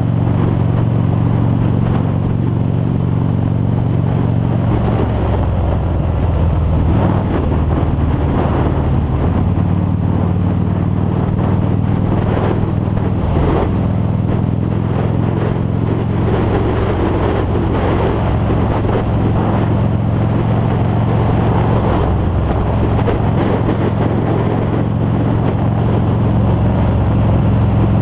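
Harley-Davidson V-Rod Muscle's 1250 cc liquid-cooled V-twin running at cruising speed, with wind noise on a helmet-mounted camera. The engine note steps to a new pitch a few times as the throttle changes.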